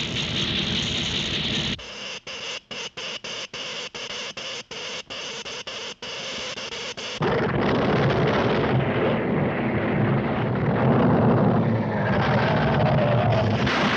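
Cartoon sound effects of the electric earthquake machine at work: a hiss, then a choppy electrical sputter broken by many short gaps, then about seven seconds in a louder, deep rumble of the induced earthquake takes over.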